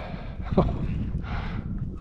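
Wind rumbling on the microphone, with one short sharp knock about half a second in.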